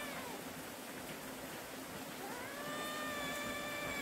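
Cat meowing: the end of one call falls away right at the start, and a long, drawn-out meow begins a little past halfway and holds steady. Under it runs a steady hiss of heavy rain.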